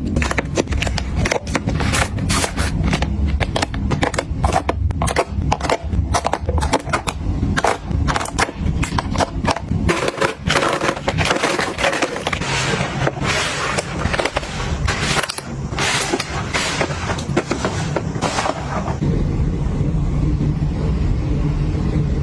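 Makeup items and containers being handled and sorted, clicking and clattering in quick succession. Near the end the clicks thin out and a low steady hum is left.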